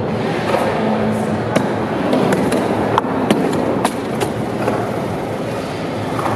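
WCMX wheelchair rolling over skatepark ramps: a steady rolling rumble from the wheels and casters, with a string of sharp clicks and knocks as the chair rattles over the surface.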